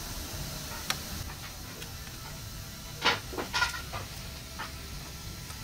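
A steady background hiss, with a light click about a second in and a few short scrapes and knocks around three seconds in, as a steel tape measure is handled over the panel.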